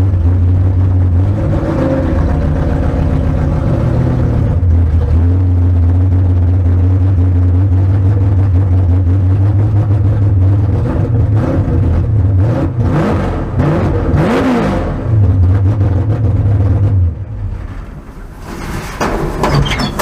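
Car engine idling with a lumpy, steady drone, blipped a few times past the middle so the pitch rises and falls, then dropping quieter near the end.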